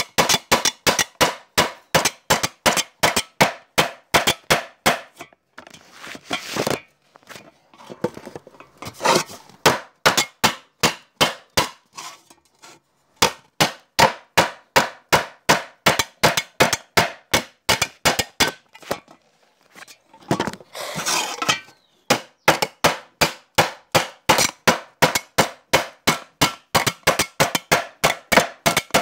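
A hammer tapping on a jar in a quick, even rhythm of sharp knocks, about four a second, stopping a few times, with brief rustling and scraping in two of the pauses.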